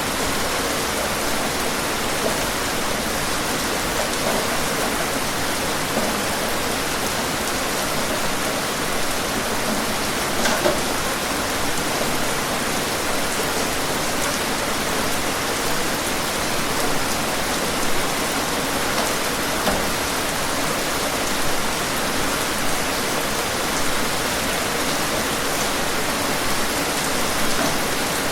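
Steady rain falling, an even hiss with occasional faint drop ticks.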